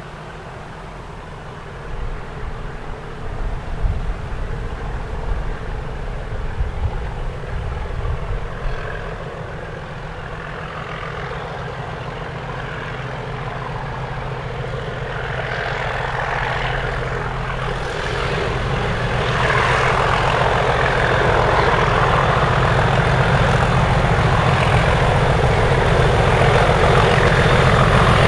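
Two English Electric Class 37 diesel-electric locomotives working a heavy freight train, their V12 diesel engines under power and growing steadily louder as they approach, loudest near the end as they pass close by. The leading 37417 is poorly and is being helped along by 37401 behind it.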